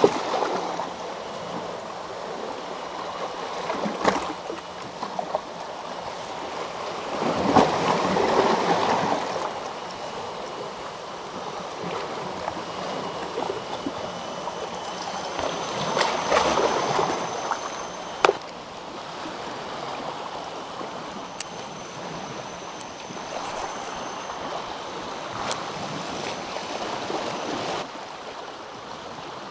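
Sea water washing and sloshing against shore rocks: a steady rush that swells louder twice as waves surge in. A few sharp clicks stand out.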